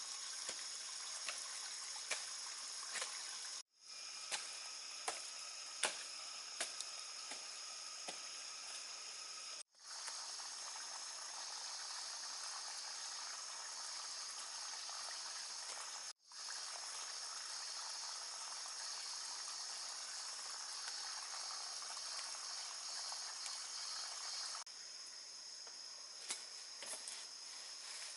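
Outdoor ambience of a steady, high insect chorus over trickling water, with scattered light knocks and taps in the first several seconds.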